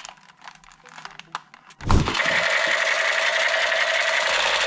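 Light handling clicks of plastic toys, then a thud about two seconds in. After the thud a battery-powered toy gun's electronic sound effect buzzes steadily.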